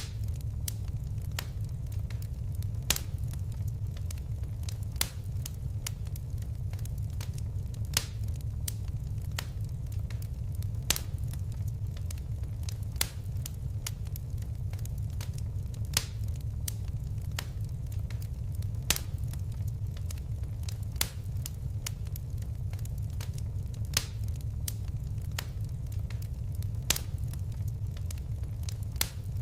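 Fireplace fire crackling: a steady low rumble of flame with irregular sharp snaps, and a louder pop every few seconds.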